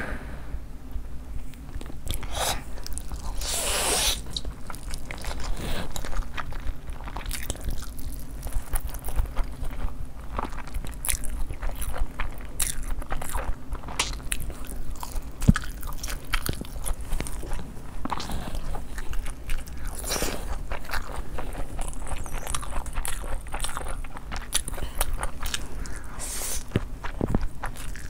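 A person biting into and chewing crunchy food: a steady run of crisp crunches and crackles, now and then broken by a longer, louder noise.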